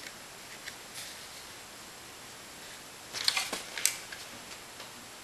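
Quiet handling sounds: a few faint ticks, then a short clatter of sharper clicks and rustling a little over three seconds in as the clipboard holding the bracelet is lifted off the stone counter.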